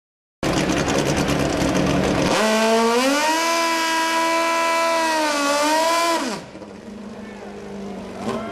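Pro Extreme drag motorcycle engine doing a burnout. It runs rough and loud, revs up to a high pitch and holds it for about three seconds, then drops back to a much quieter idle about six seconds in.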